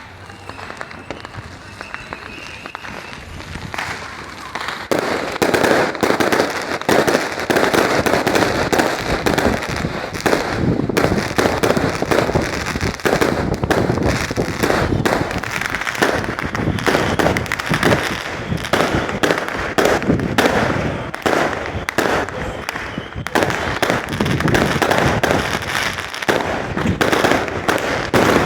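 Many fireworks and firecrackers going off at once: a dense, continuous barrage of overlapping bangs and crackles that swells sharply about five seconds in.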